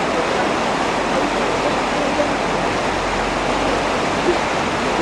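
Fast river water rushing steadily, the even roar of rapids.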